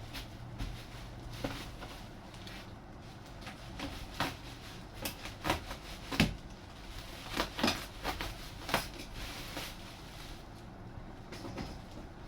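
Unpacking noises: a string of irregular knocks, scrapes and rustles from handling packaging and model parts, busiest in the middle.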